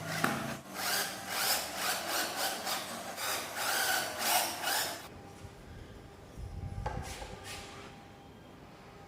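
A tool rubbing on wood in rhythmic strokes, about two a second, stopping about five seconds in; one more brief scrape with a low rumble follows about seven seconds in.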